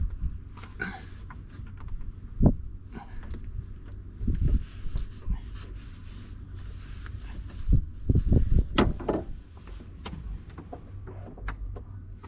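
Irregular knocks and clunks of a new lift-gate gas strut being worked onto its mount while the gate is pushed up, because the strut can't be compressed by hand. One sharp knock comes early, a short run of clunks follows, and the loudest cluster comes a little past the middle.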